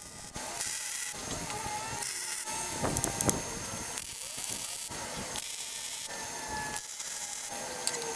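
Small power tool running on metal in a string of short clips, each cut off abruptly, with scraping and rubbing between them.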